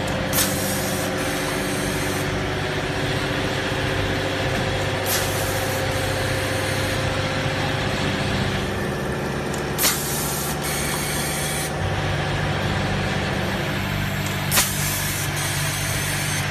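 Rotary stand-up pouch packing machine running with a steady mechanical hum, punctuated by short sharp hisses of released air about every five seconds.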